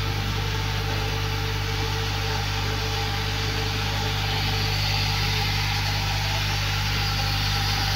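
IMA vibratory bowl feeder running: a steady electric hum, with the small white plastic parts in the bowl rattling continuously along its spiral track.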